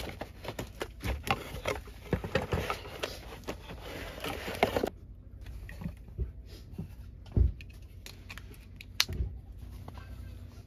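Clear ball-shaped string-light globes and their cardboard box being handled: a dense run of small clicks, taps and rustling for about five seconds, then sparser taps and a dull knock about seven seconds in.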